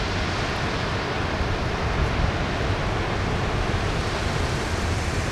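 Steady rush of ocean surf breaking, with wind rumbling on the microphone.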